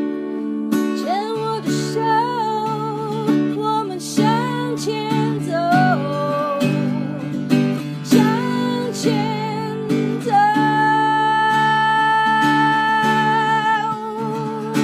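Instrumental music: acoustic guitar accompaniment under a melody with vibrato, which settles into one long held note about ten seconds in.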